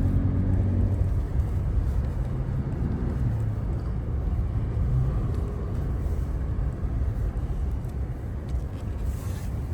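Truck driving, with a steady low drone of engine and road noise.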